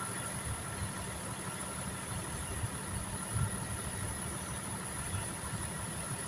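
Steady low mechanical rumble with a faint, constant high-pitched whine above it.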